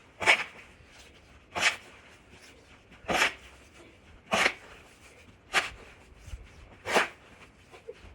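Snow shovel scraping into deep snow in a steady rhythm of short strokes, about one every second and a quarter, six in all.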